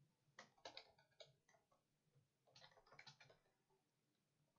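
Near silence with faint computer keyboard keystrokes in two short clusters, a few taps just under a second in and another handful about three seconds in.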